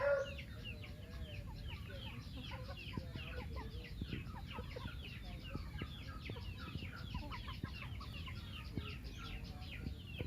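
A flock of chickens calling: a constant chatter of many short, high, falling calls, with a low rumble underneath.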